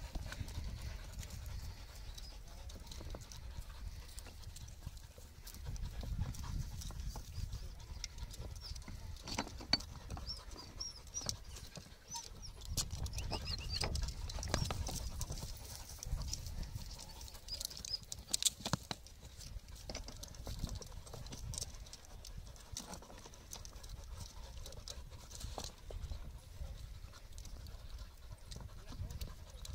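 Podenco canario hunting dogs scrabbling among loose rocks as they nose into a rabbit's hiding place: scattered clicks and knocks of paws and stones, with dog panting and a low rumble that comes and goes.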